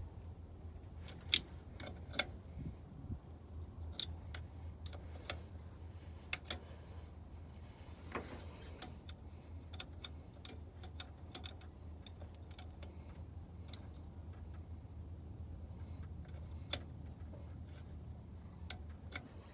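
Irregular light clicks and taps of tools and metal parts being handled while bleeding a truck's brake master cylinder, over a faint steady low hum.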